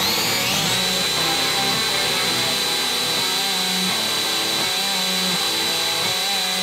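Makita 18V cordless drill spinning up with a rising whine, then running at steady high speed while drilling a hole through an aluminum linear-bearing housing, and winding down near the end.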